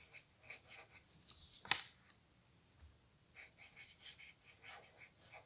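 Faint scratching of a felt-tip marker writing on paper, with one sharp click a little under two seconds in.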